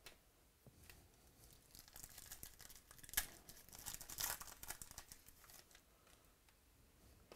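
Foil wrapper of a trading-card pack being torn open and crinkled by hand: a run of crackling tears, loudest about three and four seconds in.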